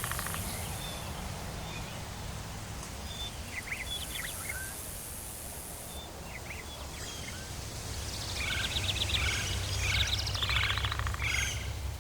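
Tropical forest ambience: birds give scattered short chirps, then a busy spell of trilling calls in the last few seconds. High insect buzzing comes and goes, over a low steady rumble.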